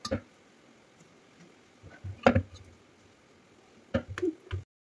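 Boiled potatoes being handled and peeled over a steel pot: a few short knocks and taps, the loudest about halfway through and a quick cluster near the end, then the sound cuts off suddenly.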